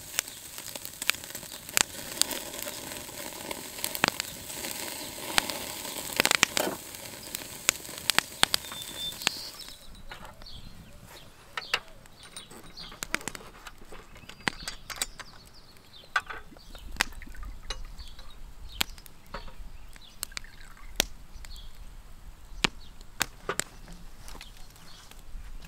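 Meat sizzling on a charcoal grill with the coals crackling and popping, for about the first ten seconds. Then it turns quieter, with sparse light clicks as a glass bottle's screw cap and shot glasses are handled.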